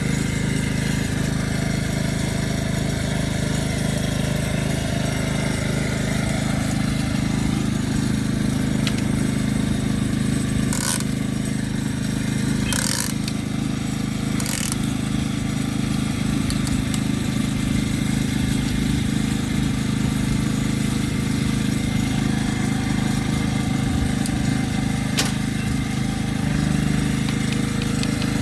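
An engine running steadily at one speed, a constant low hum, with a few short clicks or knocks near the middle.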